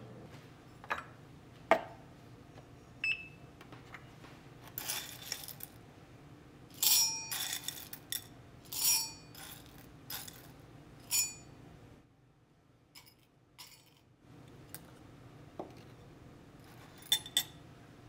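Coffee beans dropped in several short pours into a stainless steel dosing cup on a scale, clinking and rattling against the metal as the dose is weighed out. A few sharp clicks and knocks come in the first three seconds.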